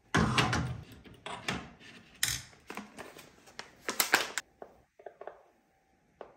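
Kraft paper spice pouch crackling as it is handled and opened, with glass jars knocking on a tray as a jar is refilled with ground spice. The crackles come in a quick run over the first four seconds or so, then only a few faint clicks.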